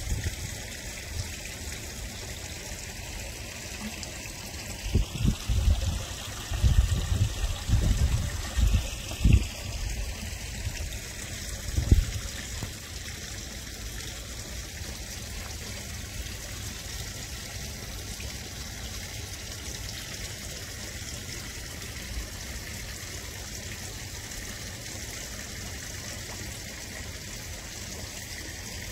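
Koi pond water trickling steadily. A few low thumps come between about five and twelve seconds in.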